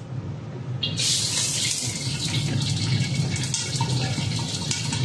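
Hot oil in an iron wok sizzling as small thawed fish go in. The sizzle starts suddenly about a second in and carries on steadily.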